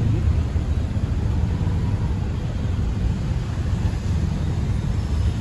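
Steady low rumble of a car driving in slow city traffic, heard from inside the car: engine and tyre noise.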